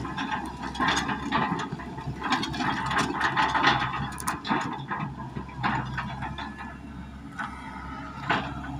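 An excavator's steel tracks clanking and rattling over a steady engine hum, with many irregular metallic knocks as the machine drives down off a truck.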